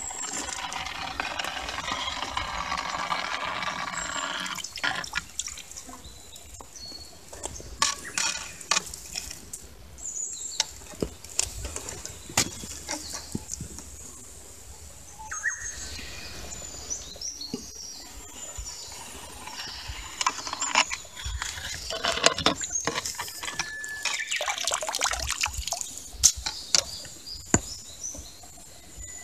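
A hand net worked through shallow pond water: water swishing and dripping, with scattered sharp clicks and rattles of wet gravel in the mesh. A wash of water noise runs for the first few seconds, stops, and returns in the second half.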